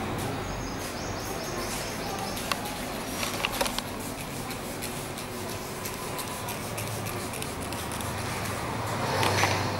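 Hand trigger spray bottle squirting cleaning liquid onto car paint, a quick run of sprays about three to four seconds in, over a low steady hum.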